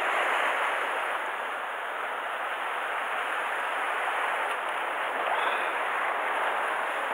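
Sea surf washing and churning against the rocky shore below, a steady rushing.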